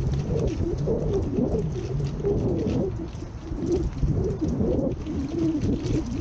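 A flock of feral pigeons cooing, many low, wavering coos overlapping continuously, over a low rumble.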